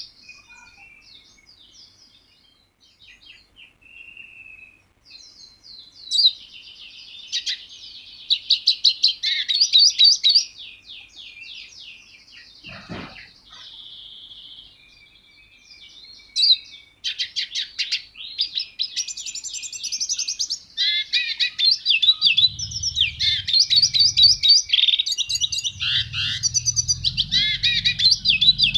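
A songbird singing in fast runs of high chirps and trills, with pauses between phrases. The song is sparse at first and near-continuous in the second half.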